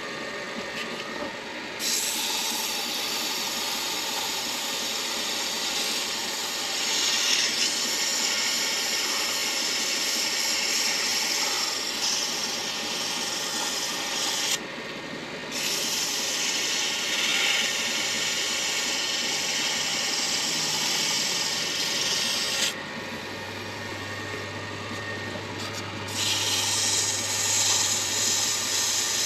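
Midi lathe running steadily while abrasive is pressed against the spinning wood and deer-antler pen blank, a rasping rub that stops briefly about halfway and again for a few seconds near the end, leaving only the lathe's motor.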